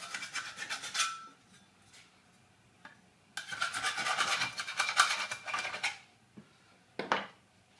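Hand file rasping across the hacksawn edges of a steel trunking lid to dress the cuts: a run of quick strokes that stops about a second in, then another run from about three and a half seconds to six seconds. A single short knock near the end.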